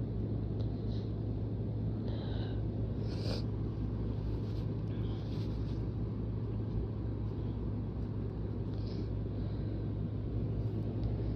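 A steady low rumble with a constant hum under it, and a few faint, short breathy sounds scattered through it.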